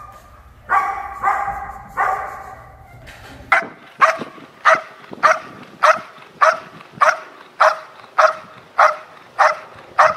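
Protection-trained dogs on leash barking at a decoy in a bite jacket: first three barks over a low hum from a black German Shepherd-type dog, then a Belgian Malinois barking steadily, nearly two sharp barks a second.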